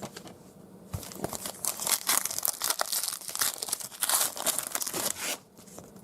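A plastic trading-card pack wrapper being torn open and crinkled in the hands, a dense crackling that starts about a second in and stops shortly before the end.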